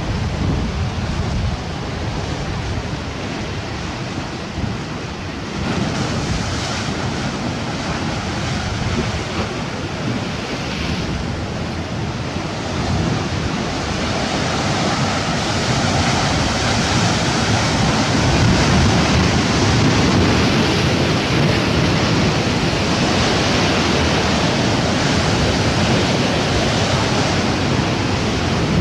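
Sea surf washing and wind buffeting the microphone: a steady rushing noise that grows louder about halfway through.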